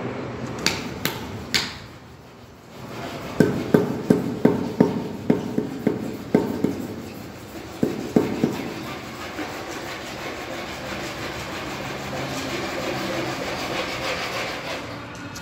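Granite floor slab being tapped down into its wet sand-and-cement bed with a hammer to seat it level: a few sharp knocks, then a quick run of about a dozen at three or four a second, and a few more. The latter part holds only a steady background noise.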